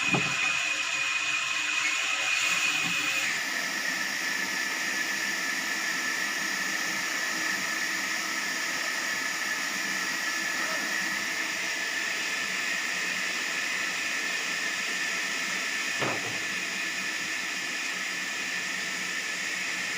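Sawmill saw running with a steady hiss and a high whine that drops in pitch a little over three seconds in; a single knock about sixteen seconds in.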